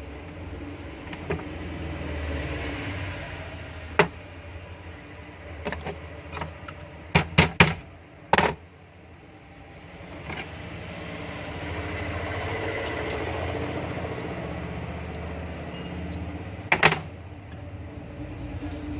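Small electric exhaust-fan motor, freshly fitted with new bearings, running with a low hum that swells and fades. Its hum dips briefly about eight seconds in, then builds again. Sharp clicks and knocks come from handling the wiring and connector: one about four seconds in, a cluster around seven to eight seconds, and another near the end.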